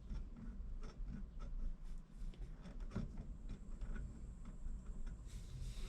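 Faint, irregular metallic clicks from a Yamaha Drag Star's driveshaft and universal joint as they are rocked back and forth by hand, the play in the intermediate shaft clicking.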